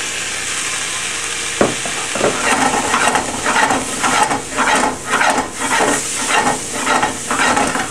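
Red onions, garlic and cubed vegan chicken sizzling in coconut oil in a skillet. About one and a half seconds in there is a knock, and then the food is worked around the pan in regular strokes, about two a second, each stroke bringing a surge of sizzle.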